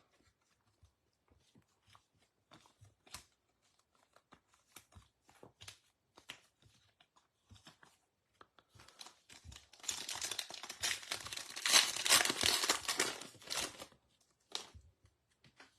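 Trading cards handled with faint clicks and slides. About ten seconds in, a foil trading-card pack is torn open, with about four seconds of loud crinkling and tearing of the wrapper.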